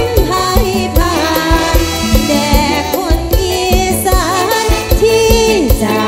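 Live mor lam band music with a singer, over a steady drum beat of about two strikes a second.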